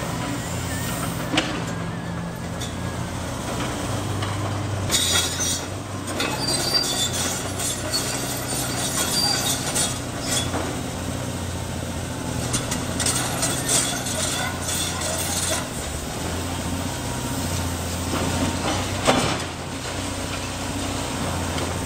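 CAT 330D hydraulic excavator's six-cylinder diesel engine running and rising and falling under hydraulic load, with high metallic squeals and scraping as its demolition grab tears into the building. Several crashes of breaking masonry and falling debris, the loudest near the end.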